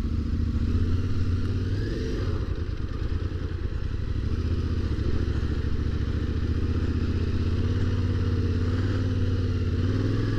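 Adventure motorcycle engine running at low, steady revs while riding through sand, with the revs rising briefly about two seconds in and again near the end.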